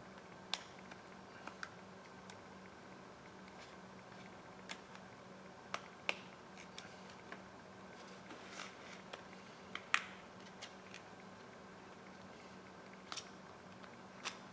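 Scattered, irregular light clicks and ticks of a thin metal pick working along the edge of an iPhone 7 Plus screen, over a low steady hum.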